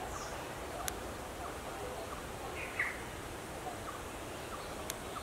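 Outdoor birdsong ambience: scattered short bird chirps over a steady background hiss, with one louder, sharper call about halfway through. Two faint sharp clicks, about a second in and near the end.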